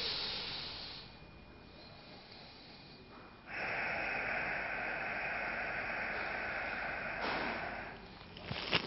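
A person breathing close to the microphone during a yoga pose: a short breath at the start, then one long, steady breath through the nose lasting about four and a half seconds, with a faint whistle in it. A few soft clicks near the end.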